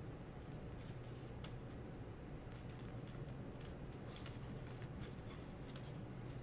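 Scissors snipping through a sheet of paper in short, irregular cuts, faint over a low steady hum.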